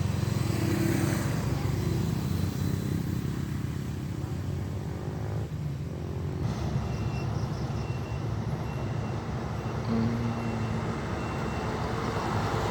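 Heavy truck's diesel engine labouring up a steep grade: a steady low drone.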